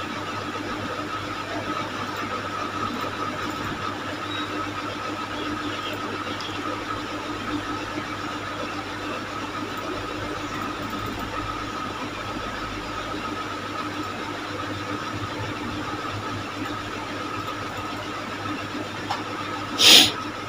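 Steady background hum and hiss with a faint high tone running through it. About half a second before the end there is one short, loud sound.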